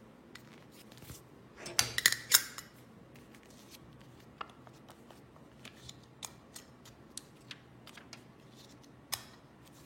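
Metal clicks and clatter from the dies of a button-making press being handled. A quick cluster of sharp clicks comes about two seconds in and is the loudest part. Scattered light taps follow, with one more click near the end.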